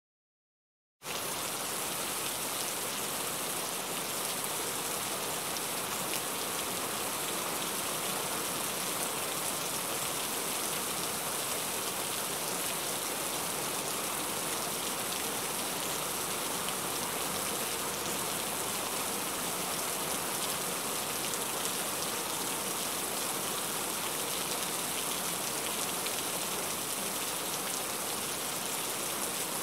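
Rain falling steadily on a car's roof and windshield, heard from inside the cabin; it starts suddenly about a second in.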